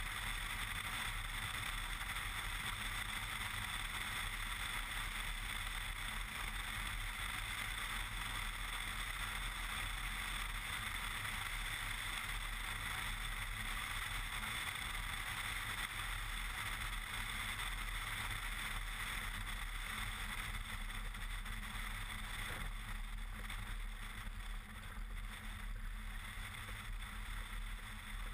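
Cessna 170B's six-cylinder engine and propeller running steadily, mixed with rushing airflow over an outside-mounted camera, through a low approach and landing on a grass strip. The sound eases a little in the last few seconds as the plane rolls out on the grass.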